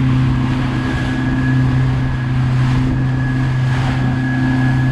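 Motorboat engine running steadily at cruising speed, a constant drone with a thin high whine above it, under the rush of wind and water as the hull moves through the sea.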